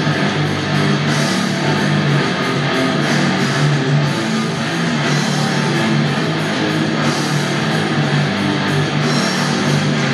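Heavy rock music with guitar and drums.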